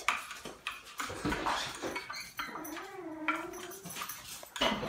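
Metal spoon stirring hot chocolate in a ceramic mug, clinking against its sides, with a short wavering whine from a pet about three seconds in.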